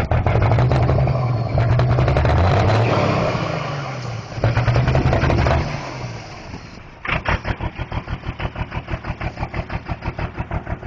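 Cummins diesel with twin turbos held at high revs, easing off briefly about four seconds in and revving again, then dropping to a lumpy, loping idle with an even pulse of about five to six beats a second. The owner puts the rough lope down to a bad injector.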